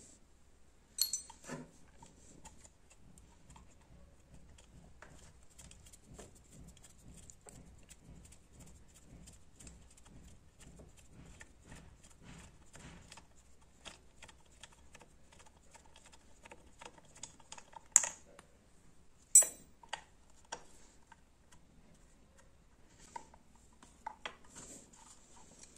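Faint small clicks and taps of bolts and the oil filter cover being worked off a Yamaha FZS V3 engine's side cover by hand. A few sharper clicks stand out, one near the start and two close together past the middle.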